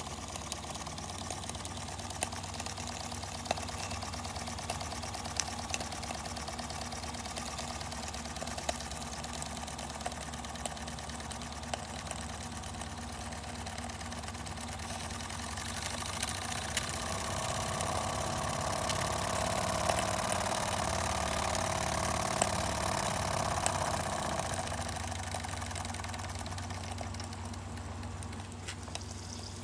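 Empire No. 31 toy steam engine running steadily under steam, a fast even mechanical clatter with occasional sharp ticks. About halfway through it gets louder, with more steam hiss, for roughly ten seconds, then settles back.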